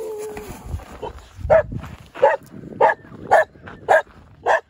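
A dog barking over and over, about six short barks a little more than half a second apart. Before the barks, a drawn-out whine trails off in the first second.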